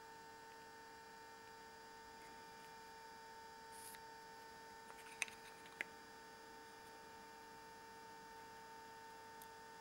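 Near silence: a faint steady hum, with two faint sharp clicks about five and six seconds in.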